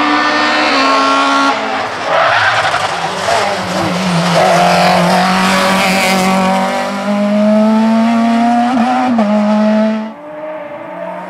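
Rally car engines revving hard at full throttle, pitch climbing and falling through gear changes, with tyre squeal as the cars corner. The level drops abruptly about ten seconds in.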